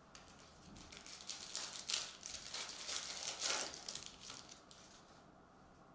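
Foil wrapper of a 2021-22 Mosaic Premier League soccer card pack being torn open and crinkled by hand: a run of crackling rustles that starts about half a second in, peaks twice around two and three and a half seconds, and dies away near the end.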